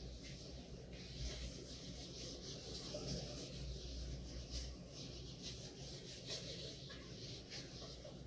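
Faint repeated rubbing strokes of an eraser wiping marker off a whiteboard.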